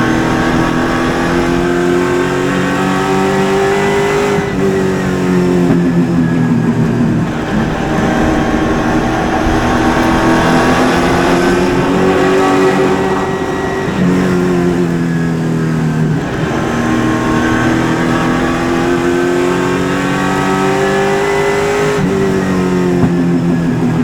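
Super late model race car's V8 engine at racing speed, heard from inside the car. The pitch climbs steadily, then drops sharply as the throttle lifts, and this repeats several times.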